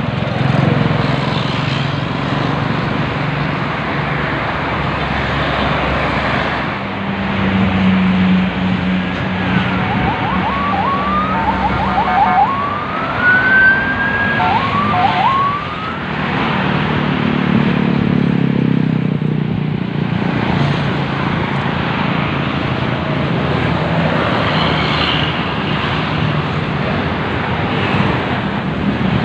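Steady noise of multi-lane toll-road traffic with large diesel coach buses driving past, their engines droning low as they go by. About ten seconds in, a siren-like call of short rising tones and one long rising tone sounds over the traffic for about five seconds.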